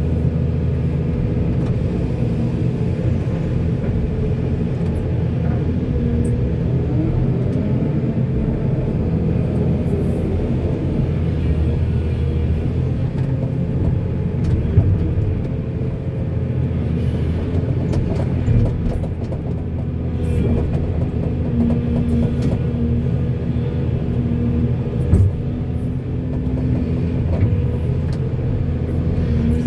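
Heavy diesel earthmoving machinery running steadily under load, its engine note wavering, with a few sharp knocks along the way.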